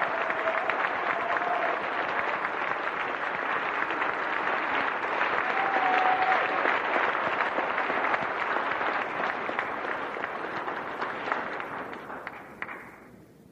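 Audience applauding after a live song performance, a dense steady clapping that fades out near the end.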